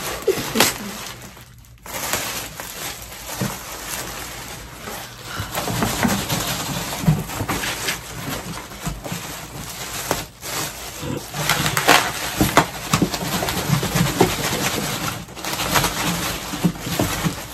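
Clear plastic wrapping and cardboard rustling and crinkling as a shipping box is unpacked, with many sharp crackles throughout.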